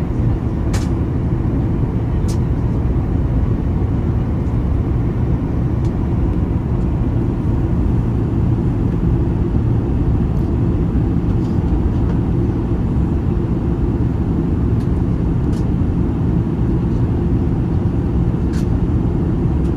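Steady cabin drone of a Boeing 737-900ER in flight: the CFM56-7B engines and rushing airflow make an even low rumble with a faint hum, with a few light ticks from the cabin.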